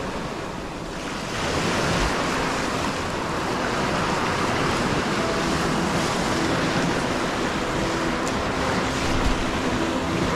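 Sea waves surging and breaking over shore rocks, growing louder about a second in, with some wind noise.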